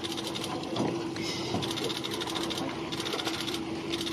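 A small motor running steadily, with a fast, even ticking rhythm over a constant hum.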